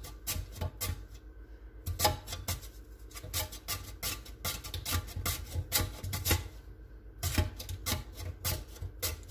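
Raw potato rubbed up and down a stainless steel box grater, a rasping stroke about three times a second, in short runs with brief pauses between them.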